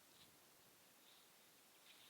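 Near silence with faint, short, high chirps from a bird in a tree, three of them about a second apart.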